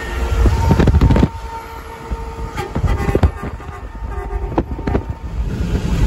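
Hadley air horn on a Volvo VAH semi truck blowing: a long chord-like blast cuts off about half a second in. A loud rush of noise follows, then a few short toots over highway road noise.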